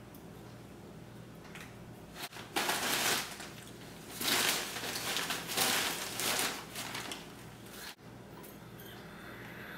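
Plastic bag crinkling and rustling as it is handled, in irregular loud bursts over several seconds in the middle, under a faint steady hum.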